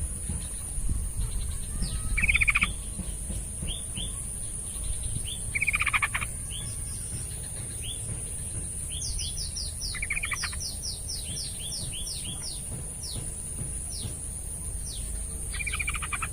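Yellow-vented bulbul (trucukan) singing: four short bubbly, warbling phrases, with a run of quick, thin, falling chip notes in the middle part. A steady high whine runs underneath.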